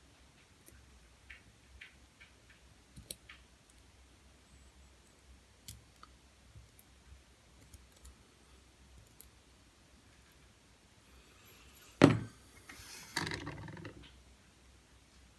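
Faint, scattered small clicks of loose lock pins (spools, serrated and standard pins) being nudged into line on a surface, then a loud thump about twelve seconds in and a brief rustle of handling.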